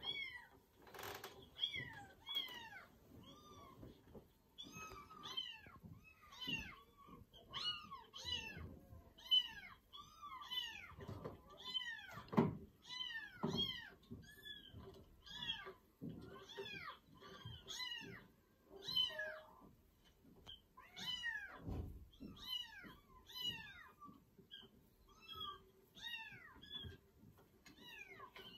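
Kittens meowing over and over: high-pitched calls that rise and fall, about one or two a second, often overlapping.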